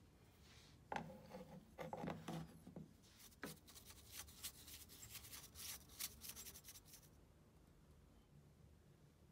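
Metal parts of a 1909 New Home vibrating shuttle sewing machine being handled: the faceplate and needle bar mechanism knock and rub about a second in, then give a run of sharp clicks and clinks until about seven seconds in.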